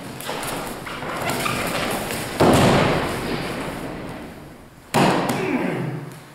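Two loud thuds on a foam mat, about two and a half seconds apart: the first is an aikido partner's body landing as he takes the fall from a kotegaeshi wrist throw, the second a slap on the mat while he is held in the pin.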